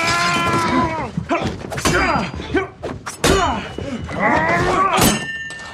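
Film fight sounds: men shouting and straining with effort while blows land as a series of thuds, the deepest about three seconds in. A sharp hit near the end leaves a brief ringing tone.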